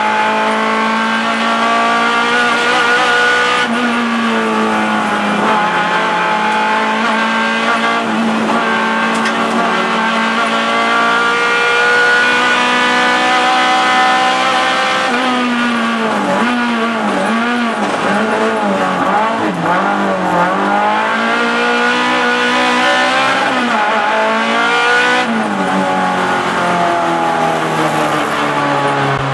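Renault Clio Sport's four-cylinder engine heard from inside the cabin, run hard at high revs up a hillclimb. A couple of gear changes drop the revs, and through a run of bends in the middle the revs dip and rise again and again as the driver lifts and accelerates.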